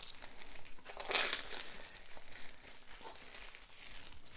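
Plastic shrink-wrap being torn and peeled off a card-deck box, crinkling in the hands, loudest about a second in.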